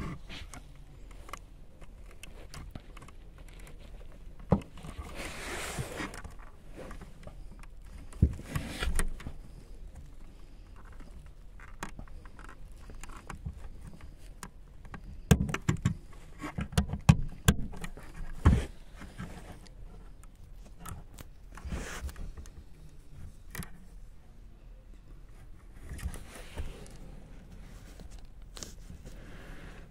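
Clicks, knocks and scrapes of hard plastic as an Audi's third brake light housing is handled against the rear headliner, with a quick run of sharp clicks about halfway through.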